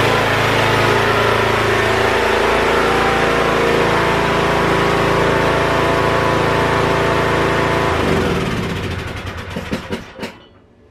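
Troy-Bilt riding lawn mower's engine running steadily, then shut off about eight seconds in and winding down to a stop, followed by a couple of clicks near the end.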